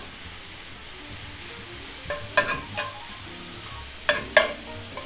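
Beef and pork with diced tomatillos sizzling as they brown in a skillet, stirred with a metal spatula that knocks and scrapes against the pan a few times, about two seconds in and again about four seconds in.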